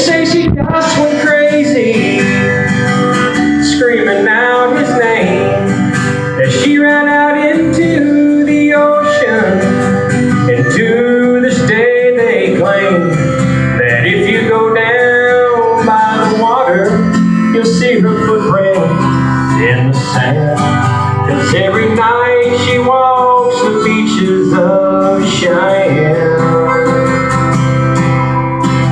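A man singing a country song to his own strummed acoustic guitar, played live.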